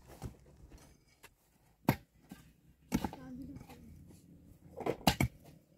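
A few sharp knocks, struck hard and singly: one about two seconds in, one about a second later, then three in quick succession near the end.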